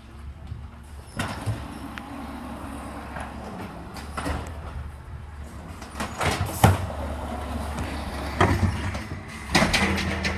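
Natural-gas-powered automated side-loader garbage truck running steadily while its arm lifts a cart and dumps it into the hopper. Sharp clanks and bangs come in the second half as the cart is shaken out, the loudest about two-thirds of the way in.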